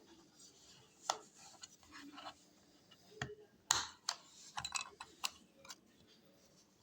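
Scattered light clicks, taps and short scrapes of small hard objects knocking together, the sharpest a little past halfway through.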